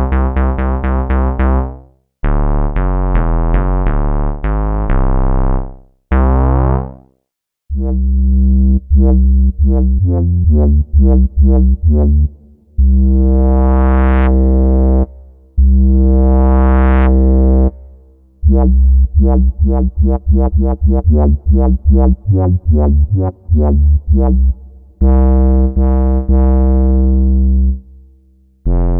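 MES Mini PWM synthesizer playing bass patches: short repeated low notes and riffs, with a few held notes whose filter sweeps bright and closes again. Several patches follow one another with brief pauses between them.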